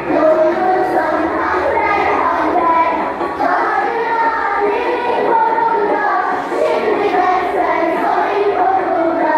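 A group of young girls singing a song together in chorus, the kind sung along with an action game.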